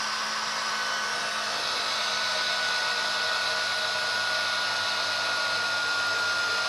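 Small electric motor of a SkyRC 1/4-scale RC motorbike running continuously at full speed: a steady whirring with a thin whine that sags slightly in pitch. The owner takes it for the speed controller playing up and driving the motor flat out.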